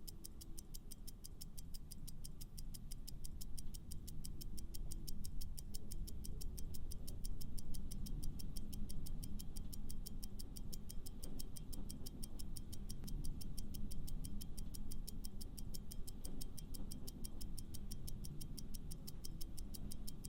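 Countdown timer sound effect: a clock ticking fast and evenly, over low background music.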